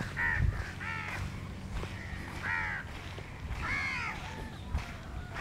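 Crows cawing: about four harsh calls at uneven gaps, over a low steady rumble.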